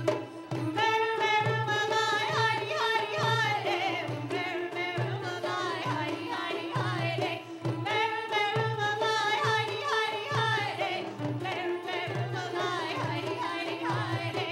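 Live Middle Eastern-style band: frame drums and hand drums keep a steady rhythm under a melody line that comes in strongly twice, about a second in and again past the middle.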